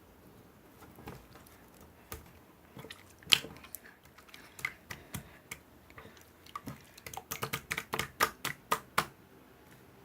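Irregular small clicks and taps, a few at a time, then a quicker run of them from about seven seconds in that stops a second before the end.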